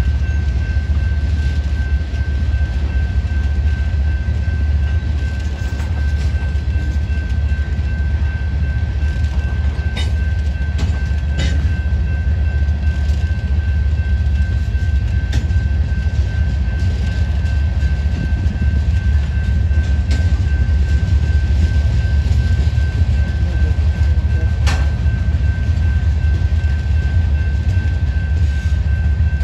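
Freight train of tank cars and covered hoppers rolling past: a heavy, steady low rumble of wheels on rail, with a thin steady high-pitched tone over it and a few sharp clanks about ten, eleven and twenty-five seconds in.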